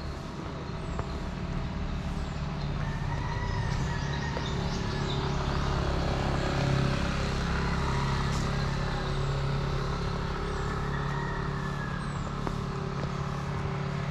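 A vehicle engine running steadily, a low hum that swells slightly in the middle, with faint bird chirps above it.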